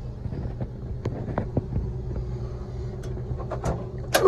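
Steady low mechanical hum and rumble of running machinery, with scattered light clicks and one sharper click just before the end.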